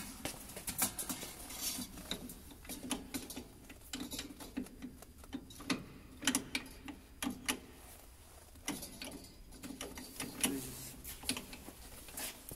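Irregular small clicks, knocks and rustles of hands handling the metal fittings of a MiG-23's fuel filter housing.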